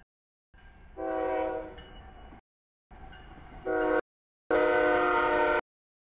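CSX diesel locomotive horn sounding a series of blasts for a grade crossing as a freight train approaches and passes: two shorter blasts, then a longer, loud one near the end, over the low rumble of the train. The sound cuts out completely for moments between blasts.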